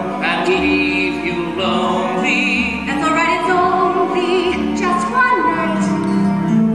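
A soprano singing in a classical, operatic style with wide vibrato, in phrases of a second or two, over orchestral accompaniment from a musical-theatre pit.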